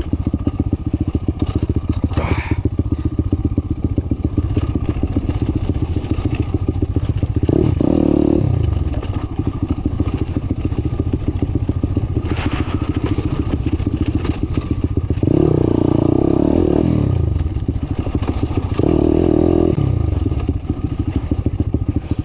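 Daytona 190 four-valve single-cylinder pit bike engine running on a rough trail, revving up three times: about eight seconds in, about sixteen seconds in, and once more a few seconds later. A couple of sharp clatters come from the bike over the bumps.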